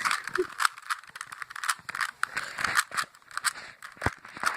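Plastic Rubik's Cube layers being turned by hand: quick, irregular clicking and rattling, with one louder knock near the end.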